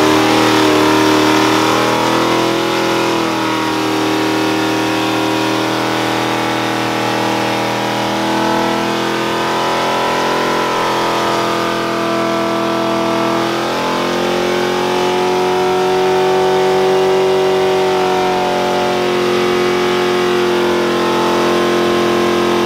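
New Edge Ford Mustang's engine held at high revs through a burnout, loud and sustained. The revs dip briefly about three seconds in and again near the middle, then climb back.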